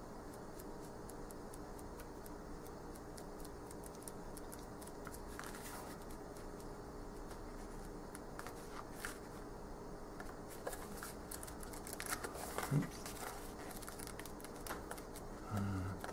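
Pages of a small paperback guidebook being turned by hand: soft paper rustles and flicks, with a sharper click about three quarters of the way through.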